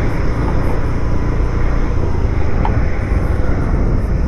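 Steady riding noise of a TVS XL100 moped's small single-cylinder engine at speed on a highway, mixed with wind and road noise as a continuous low rumble.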